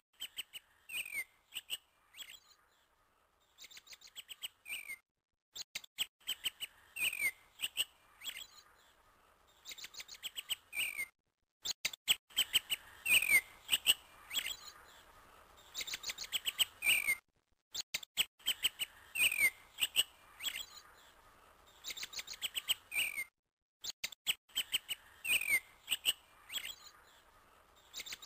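Bird chirps and tweets with quick falling whistles, coming in clusters. The sequence repeats as a loop about every six seconds, cut by short dead-silent breaks.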